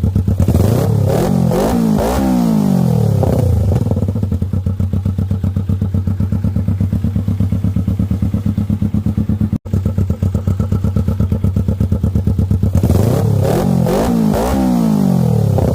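Kawasaki Versys 250's parallel-twin engine idling, revved in a quick series of throttle blips about a second in and again near the end, the pitch rising and falling with each blip.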